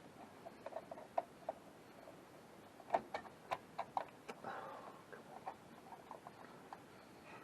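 Light clicks and taps of small computer parts and hardware being handled and fitted, with a quick run of louder clicks about three seconds in, followed by a brief rustle.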